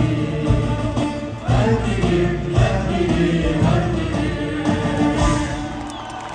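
Live band playing a Kabyle song with singing, heard from the stands of a large arena: drums, guitars and keyboards under the voices. The music eases slightly near the end.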